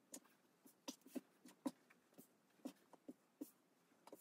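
Faint, irregular soft taps and light rustles of fabric squares being laid down and patted flat on a cutting mat, about a dozen in all.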